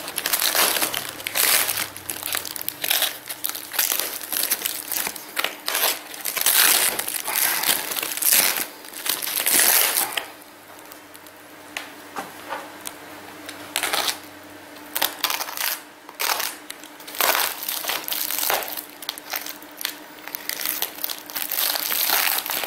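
Foam wrapping and packing tape being cut with a utility knife and pulled apart by hand, crinkling and crackling in irregular bursts, with a quieter spell about halfway through.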